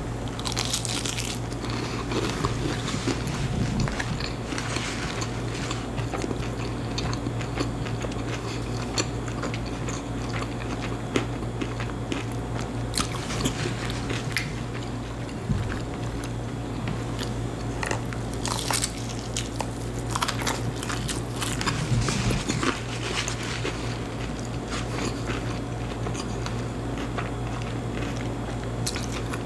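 Close-up biting and chewing of breaded fried chicken fingers, with irregular crisp crunches of the coating between quieter chewing. A steady low hum runs underneath.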